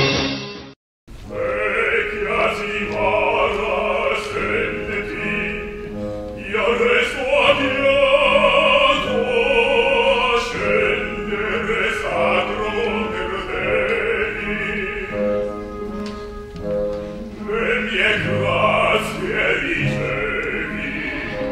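Opera singing with orchestral accompaniment. It starts about a second in, after the end of a theme jingle and a brief dropout.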